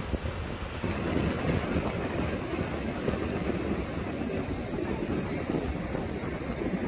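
Ocean surf breaking and washing up the beach: a steady rushing noise with a deep rumble, which turns brighter and a little louder about a second in.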